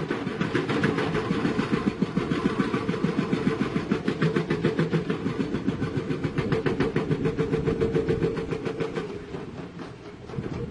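Excavator-mounted hydraulic rock breaker hammering rapidly at rock, about eight to ten blows a second over the excavator's running diesel engine. It eases off near the end.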